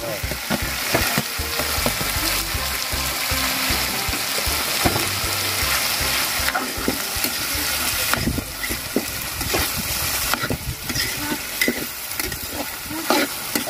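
Boiled mung beans sizzling in hot oil in a steel wok, with a metal ladle scraping and clinking as it stirs them, the clinks more frequent in the second half.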